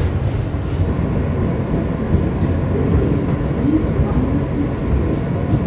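New York City subway car running along the track, a steady rumble of wheels on rails heard from inside the car.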